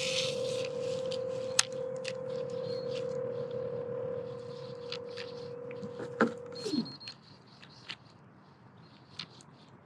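BFS baitcasting reel being cranked in a steady retrieve, its gears giving an even whine with small clicks. The whine slides down in pitch and stops about seven seconds in as the cranking ends, leaving only a few faint clicks.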